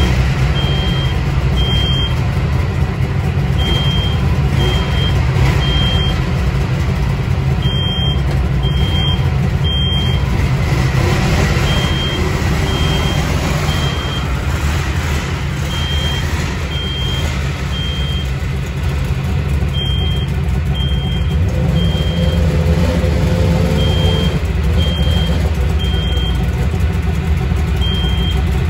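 Polaris two-stroke snowmobile engine running steadily while the sled is backed out, with its reverse warning beeper sounding in short high beeps about once a second, pausing now and then.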